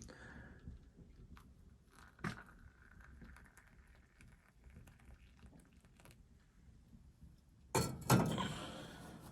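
Objects being handled, with scattered knocks and clinks: a sharp knock about two seconds in, then two louder knocks close together near the end.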